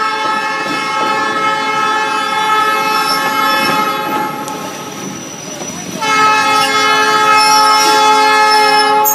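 Train air horn sounding for a road crossing: a long steady blast of about four seconds, a short break, then a second long blast from about six seconds in. Passing rail cars rumble underneath.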